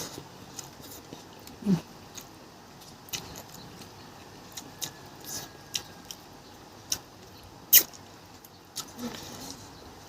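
Eating sounds from a mukbang of pangas fish: scattered small clicks and smacks of chewing and handling the food, one sharper click about eight seconds in.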